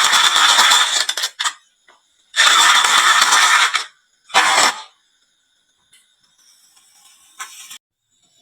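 Marbles clattering and rattling down a wooden marble-run slope in three loud bursts: one that stops about a second and a half in, one around three seconds in and a shorter one near five seconds. A few faint clicks follow, then a brief rattle near the end.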